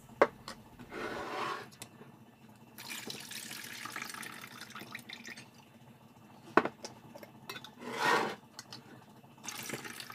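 Hot water poured out of glass jars packed with tomatoes into an enamel pot in several splashing pours of a second or a few seconds each: the blanching water being drained off during canning. Two sharp clinks of glass knocking, the louder about six and a half seconds in.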